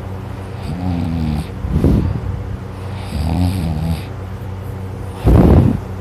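A person snoring loudly in sleep, a snore about every two and a half seconds. Each snore has a pitched, wavering part and a rougher, noisier part, and the loudest one comes near the end.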